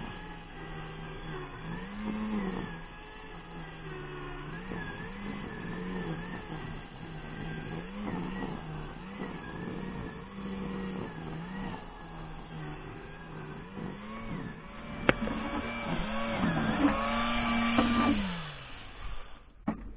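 A small petrol engine running and repeatedly revving up and falling back, louder towards the end, then winding down in pitch and stopping just before the end.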